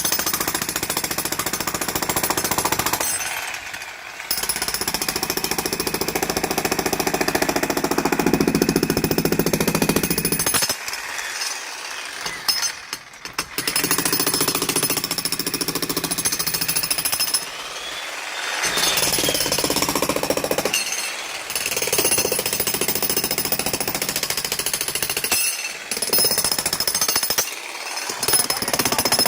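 Jackhammer breaking up a saw-cut concrete pool deck, hammering in long runs and stopping briefly several times, with the longest break about eleven to thirteen seconds in.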